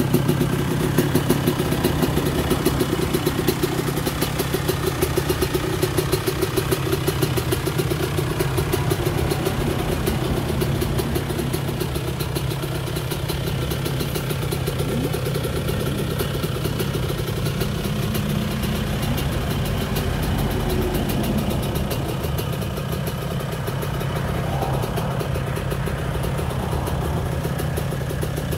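The 125 cc two-stroke single-cylinder engine of a restored 1990 Honda CR125 idling steadily.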